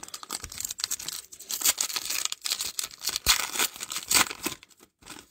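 A trading-card pack wrapper being torn open and crinkled by hand, a quick run of sharp tearing and rustling crackles that stops shortly before the end.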